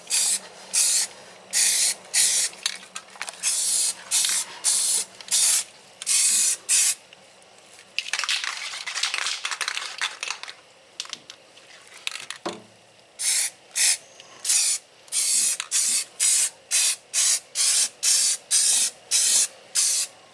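Aerosol spray can of Rust-Oleum 2X primer-and-paint spraying in many short bursts of hiss, with one longer spray of about two seconds in the middle, as welded floor-pan and frame metal is coated.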